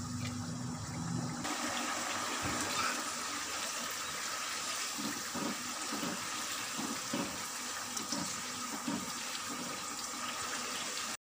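Beef qeema with capsicum sizzling and bubbling in a pan over a high flame as its liquid cooks off; the sizzle strengthens about a second in. From about five seconds in, a series of short soft knocks comes from a spoon stirring the mince.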